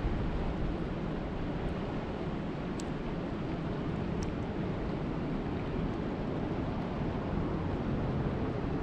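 Steady rushing noise of water and wind, heaviest in the low range, with a few faint ticks.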